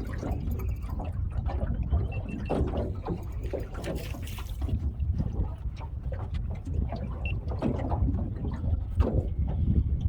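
Water splashing and lapping around a small fishing boat, over a steady low rumble and scattered short knocks from handling on board.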